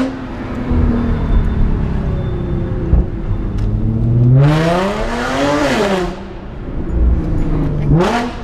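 Supercharged 3.0 V6 of an Audi A7 through an Armytrix valved stainless-steel exhaust, accelerating hard: about four seconds in the revs climb steadily for nearly two seconds with a loud exhaust note, then drop sharply. Near the end a short, quick throttle blip rises and falls.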